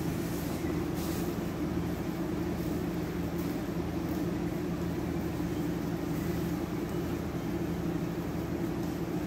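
A steady low mechanical hum that holds level and pitch throughout, with no clear handling sounds above it.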